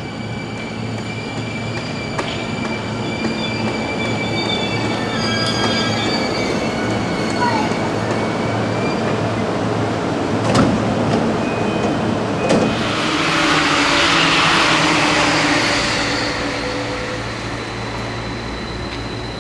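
Electric commuter train at a station platform, with steady high electric tones from its running gear. There are two sharp knocks about halfway, then a loud hiss for a few seconds.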